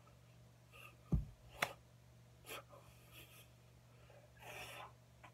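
Hands knocking and brushing against the body and clothing while signing in sign language: a dull thump about a second in, then two sharp slaps, and a short rustle of clothing near the end.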